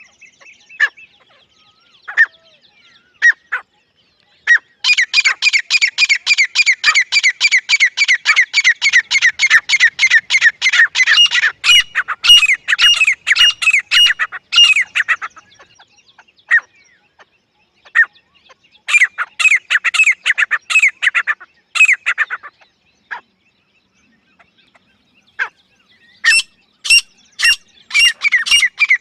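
Grey francolin calling: a few single sharp notes, then long, loud, fast runs of repeated falling notes, several a second, breaking off and starting again twice.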